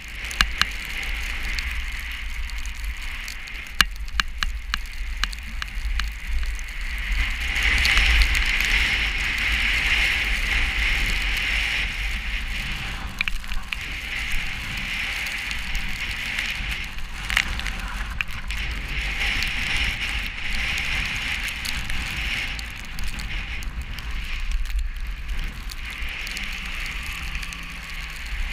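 Snowstorm: wind-driven snow hissing and crackling as it strikes, over a low rumble of wind on the microphone, growing louder about eight seconds in.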